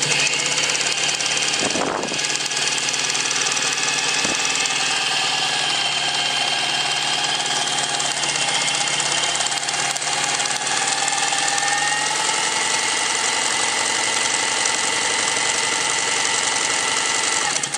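Pfaff 130 sewing machine running steadily while sewing a narrow zigzag stitch. Its pitch shifts about twelve seconds in, and it stops abruptly at the end.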